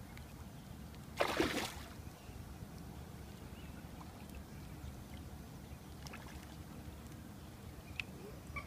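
A hooked carp splashes once at the surface beside the landing net, a short loud splash about a second in, over a low steady rumble of wind and water.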